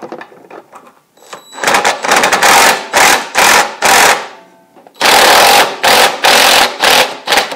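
Cordless DeWalt impact driver with a Torx bit hammering in short, loud bursts as it works loose a tight carburetor mounting bolt on a small pressure-washer engine. The bursts come in two runs, one from about a second and a half in and another from about five seconds in, with a short pause between.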